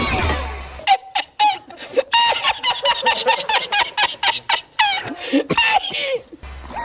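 High-pitched cartoon voice giggling in rapid, short repeated notes, after the music cuts off about a second in.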